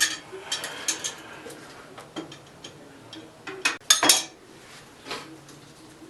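Wrench and metal fittings clinking and clicking as the oil burner's nozzle line is loosened, a scatter of small taps with a louder flurry of clanks near the end.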